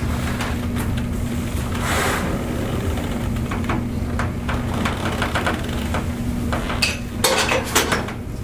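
Handling noise on a chiropractic table as the patient shifts into position: scattered light clicks, then a few louder knocks near the end, over a steady low hum.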